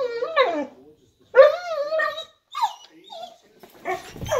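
A dog barking in long, wavering, drawn-out calls, two of them in the first two seconds, then shorter barks, with low thumps near the end as it runs off.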